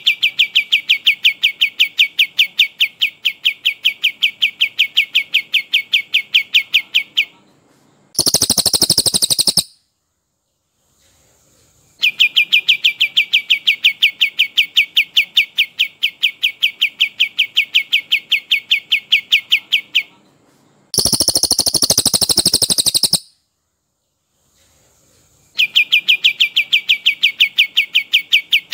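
Songbird training recording: a brown cililin's long rolling song of fast, evenly repeated notes, each run lasting about seven to eight seconds. Twice, after a run, a kapas tembak gives a harsh, very loud burst of a second or two, followed by a short silence before the rolling starts again.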